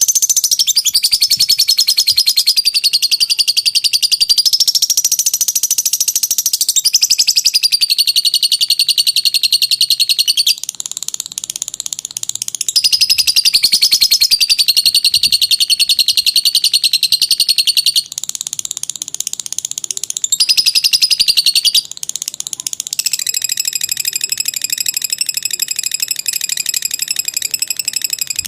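Lovebird singing its long, rapid chattering trill (ngekek), high-pitched and in long unbroken bouts of several seconds with brief pauses. In the last few seconds it turns to a steadier, more even-pitched trill.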